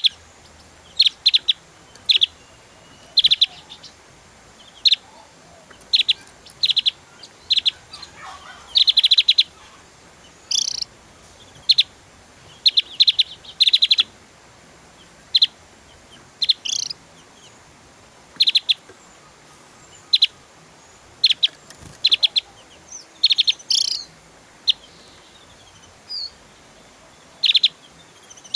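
Javan grey-throated white-eye (opior jawa) singing in short, rapid-fire bursts of high chattering notes (the 'tembakan' style), a burst every one to two seconds, with a few rising whistled notes mixed in.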